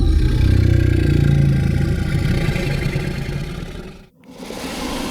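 Calm monster growl sound effect: a low, rough, rumbling growl that fades out about four seconds in. A second, quieter and breathier growl follows.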